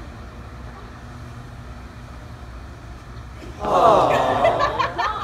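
A steady low rumble, then about three and a half seconds in a loud, wavering shriek of a person's voice, with a few short sharp ticks among it.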